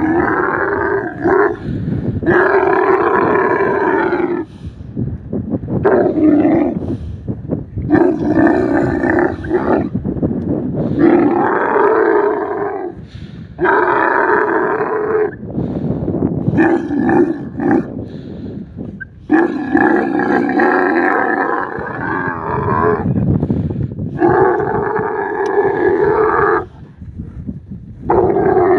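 A couched female dromedary camel bellows over and over while a bull mounts her during mating. There are about ten long, moaning calls, each one to three seconds long, with short pauses between them.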